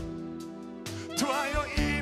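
Live worship band playing: sustained keyboard chords with a few drum hits about a second apart, and a wavering melodic line in the second half.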